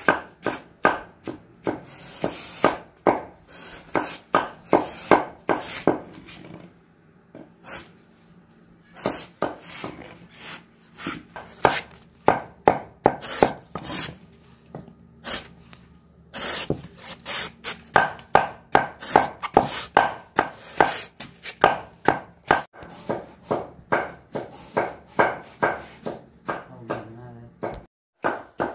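Knife chopping plant stalks for pig feed: quick, regular strokes about two to three a second, stopping twice for a couple of seconds before starting again.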